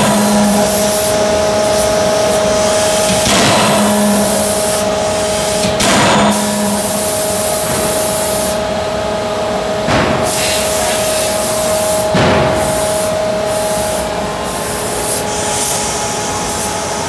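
Anyang CNC hydraulic die-forging hammer striking hot steel in its dies: about five heavy blows, two to four seconds apart, over a steady loud hum and hiss of forge-shop machinery.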